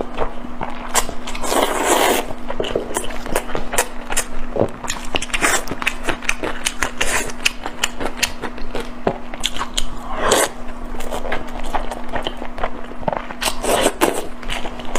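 Close-miked mouth sounds of a person biting and chewing a sauce-glazed chicken drumstick: a dense, uneven run of wet smacks and clicks.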